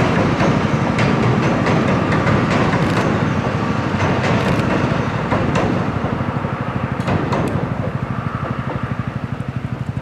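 A train running past with a steady rumble, its wheels clicking over rail joints; the sound eases slightly near the end.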